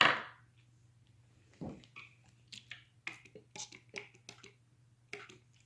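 A short hiss at the very start, then faint scattered taps and clicks of a paintbrush working white acrylic paint on a textured canvas and palette, over a steady low electrical hum.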